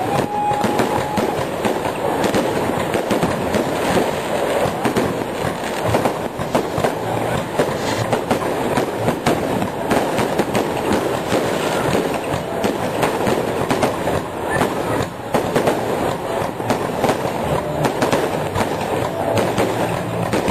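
Fireworks going off in a dense, continuous barrage of crackles and bangs.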